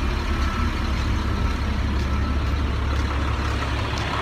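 Steady low rumble of a large vehicle engine in street traffic.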